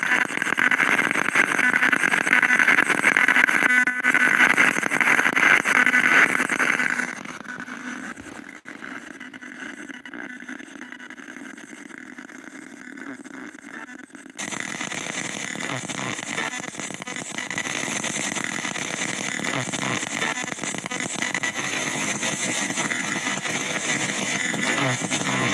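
Spirit box (ghost box) radio sweeping and giving out rasping static through its small speaker. The static drops to a quieter hiss after about seven seconds, then cuts suddenly back up to a broad, steady hiss about halfway through.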